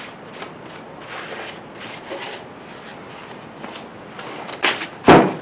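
Rag wiping over the deck surface of a small-block Chevy 350 engine block in short, repeated rubbing strokes, clearing off assembly lube before the head gasket goes on. Two loud knocks a little before the end.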